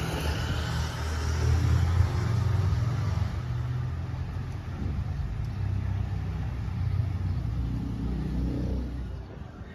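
Street traffic: a motorcycle and a car passing, heard as a steady low rumble that swells to its loudest about two seconds in and then eases off.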